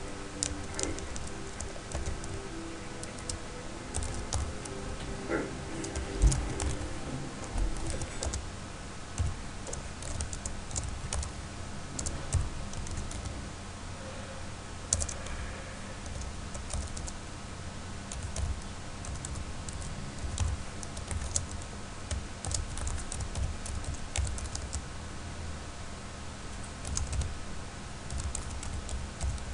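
Computer keyboard typing: irregular key clicks in quick runs with short pauses between them.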